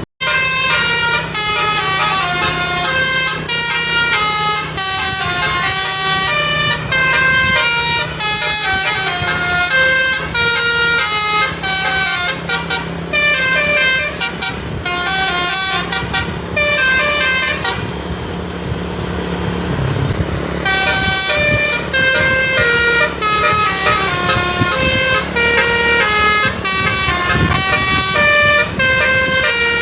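A tour bus's telolet basuri musical air horn playing a fast melody of stepped notes, pausing briefly about two-thirds of the way through before starting up again, with a steady low hum beneath.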